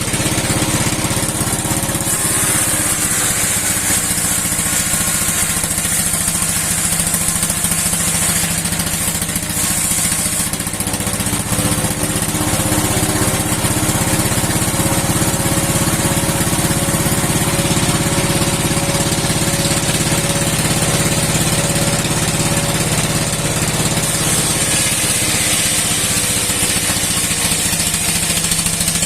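Old 60-year-old engine running steadily, driving a steel sawmill blade. A high hiss comes in about two seconds in and fades out again near ten seconds, then returns near the end.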